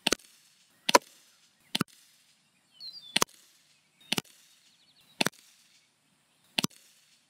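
Daisy Powerline 415 CO2-powered BB pistol firing seven shots, about one to one and a half seconds apart, each a sharp pop with a second short tap right behind it.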